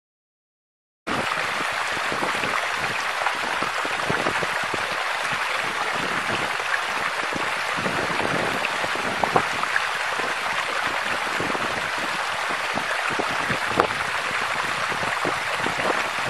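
Steady hiss of running and dripping water, like rain or a trickling stream, with scattered small drips and clicks; it starts abruptly about a second in.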